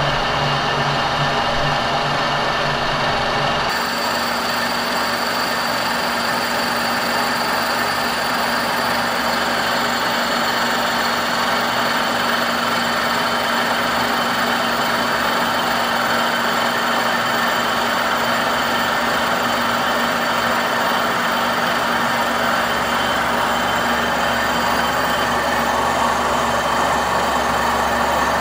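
Kearney & Trecker horizontal milling machine slab milling cast iron with an arbor-mounted helical milling cutter. The cutter grinds steadily through the cut over the hum of the machine's drive.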